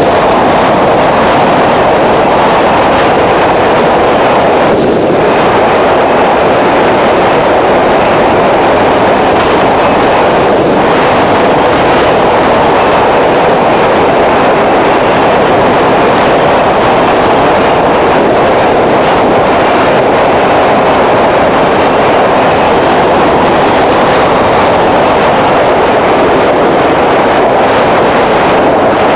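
Steady loud rushing noise from the FPV plane's onboard audio: wind over the airframe while it glides with the motor throttled nearly off. A faint falling motor whine fades out in the first second, and the noise dips briefly twice.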